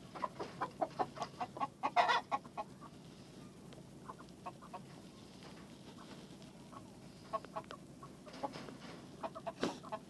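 Domestic chickens clucking: a quick run of short clucks in the first few seconds, then scattered clucks, with a sharp knock near the end.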